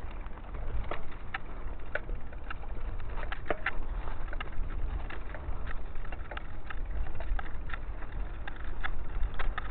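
Mountain bike rolling over a gravel dirt track: tyres crunching on loose stones with many irregular clicks and rattles, over a steady low rumble.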